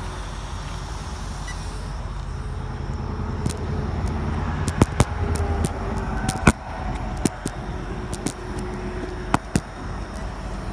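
Steady low rumble with a scattering of sharp clicks and knocks, and a faint whine from about halfway through: an Arrma Typhon 1/8 buggy with an 8S brushless motor making a speed run down the road.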